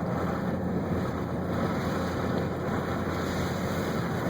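Steady driving noise from a Jeep Grand Cherokee ZJ with its 4.0 straight-six, moving at speed through heavy snow: a constant low engine drone mixed with tyre and wind noise.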